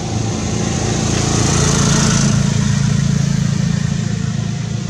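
An engine running steadily with a low hum that swells about two seconds in, then eases off.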